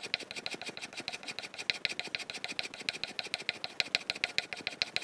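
Steel plane iron stropped rapidly back and forth on a leather strop charged with honing compound, a quick, even rhythm of short rasping strokes. It is the last honing stage, working off the burr and wire edge.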